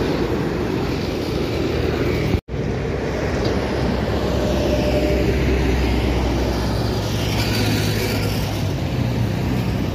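Road traffic passing close by on a main road: engine hum and tyre noise from a coach driving away, then from motorcycles, a car and a truck coming up the road. The sound cuts out for a moment about two and a half seconds in.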